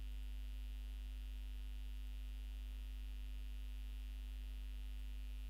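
Steady low electrical hum with faint hiss, unchanging throughout, typical of mains hum picked up by the recording microphone; no other sound.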